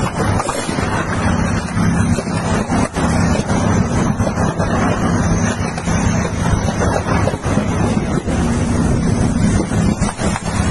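Tracked armoured vehicles' engines running steadily at close range, a deep continuous drone, with wind buffeting the microphone.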